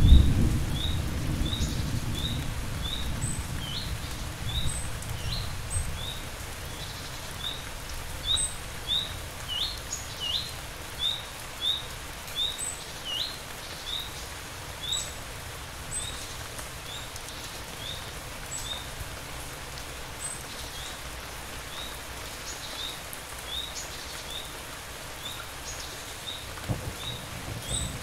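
Steady rain, with a low thunder rumble dying away over the first few seconds. A short high chirp repeats about twice a second throughout.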